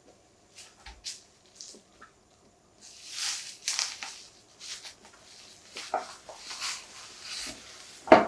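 Hands handling a phone case and its packaging: a series of short rustles and scrapes, with a sharp click or tap near the end.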